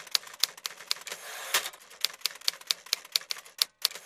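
Typewriter keys striking one at a time, about four to five a second, each a sharp clack, with a short rasping slide about a second in between the two lines of type.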